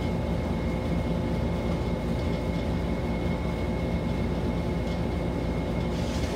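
Steady low hum and rumble with a thin constant high whine above it, even throughout: machine-like background noise.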